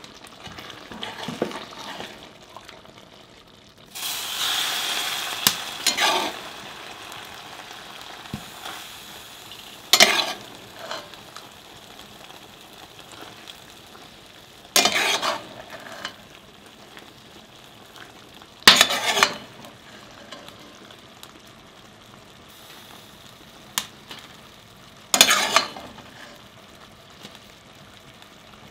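A metal ladle scooping tripe stew from a pot and pouring it into a terracotta bowl, four times, each scoop a short clatter and splash. Underneath is a steady sizzle from the stew on the hot wood-stove top, with a longer hissing stretch about four seconds in.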